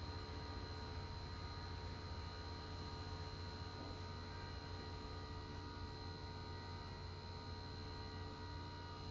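Steady electrical hum with several constant tones over a faint hiss, unchanging throughout, with no distinct tool or work sounds.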